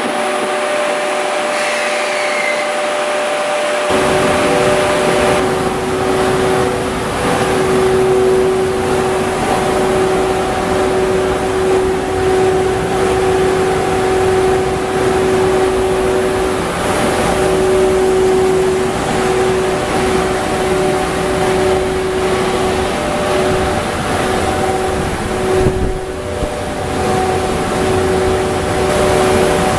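EF81 electric locomotive standing with its cooling blowers running: a steady machine hum with a whir and several held tones. The sound changes abruptly about four seconds in, when it becomes fuller and lower.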